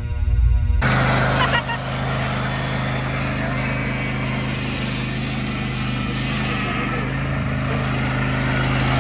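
Music cuts off less than a second in. Then a John Deere riding lawn mower's engine runs at a steady, even hum while the mower is driven.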